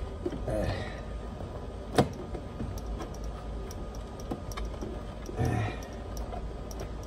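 Plastic door-pillar trim panel on a 1997 Volvo 850 being pushed and worked onto its clips, which are being stubborn: one sharp click about two seconds in, with faint ticks and rustling of the panel.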